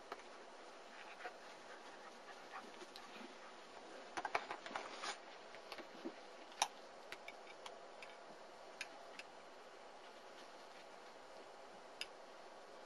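Young German Shepherd puppies playing on grass: faint scuffling with scattered small clicks and ticks, a short cluster of them about a third of the way in and a sharper click just after.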